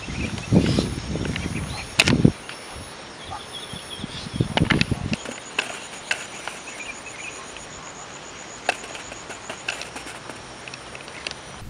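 Outdoor field sound: rustling and dull thuds in the first couple of seconds and again around five seconds in, then quieter with scattered small clicks and faint high chirping.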